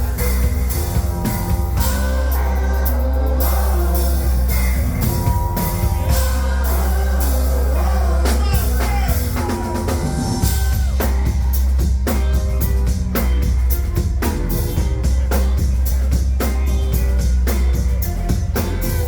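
Live band music: a drum kit keeps a steady beat over a heavy bass line, and the drumming gets busier about halfway through.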